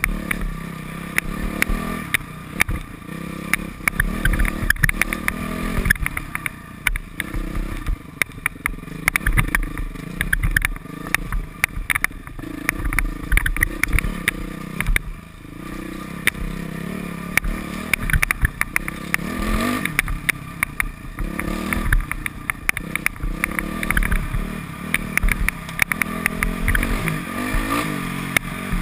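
Modified Yamaha YZ426F 426 cc four-stroke single-cylinder dirt bike engine revving up and down with the throttle, with frequent sharp knocks and rattles throughout.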